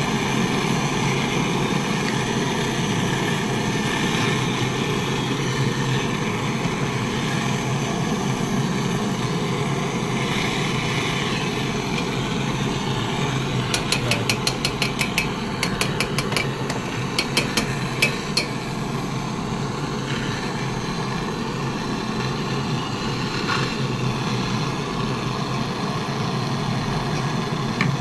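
Twin-tip brazing torch burning with a steady hiss as it heats a refrigerator compressor's copper suction stub, softening the pipe end so the suction line can be fitted. About halfway through, a run of quick ticking clicks sounds for a few seconds.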